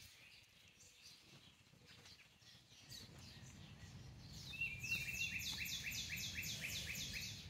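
A songbird singing a fast run of repeated down-slurred high notes, about four a second, starting about four and a half seconds in.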